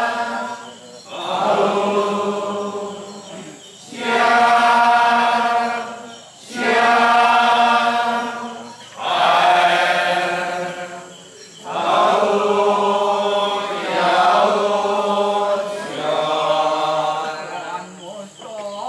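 Kecak (Balinese monkey chant) sung by a circle of men: a string of long, pitched chanted phrases, each held about two seconds, with short breaks between them.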